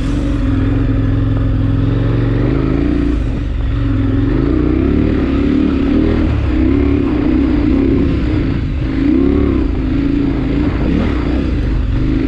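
KTM 1090 Adventure's V-twin engine pulling the bike up a dirt trail climb, its revs rising and falling again and again with the throttle, more often in the second half.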